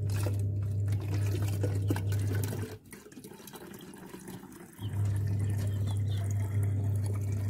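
Water poured from a plastic dipper into a plastic bottle through its narrow neck. Under it, a steady low hum that drops away for about two seconds in the middle.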